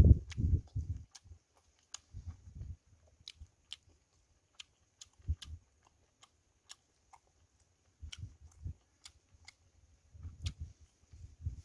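Close-up eating of roast chicken by hand: chewing and biting in short clusters, with frequent sharp little clicks and cracks from the meat, skin and small bones being pulled apart and bitten.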